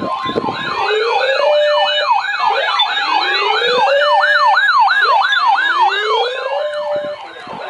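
Emergency vehicle sirens: a fast yelp sweeping up and down about three times a second, layered with a slower rising wail. Both cut off near the end.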